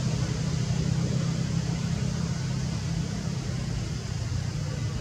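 Steady low hum of a running engine, with a constant hiss over it.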